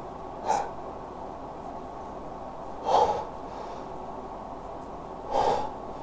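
A man's sharp, gasping breaths, three of them about two and a half seconds apart: the intakes of a sneeze building up without coming out.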